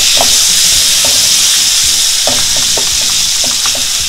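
Raw shrimp sizzling in hot oil in a nonstick frying pan, a steady hiss, while a wooden spatula stirs them, scraping and tapping against the pan several times.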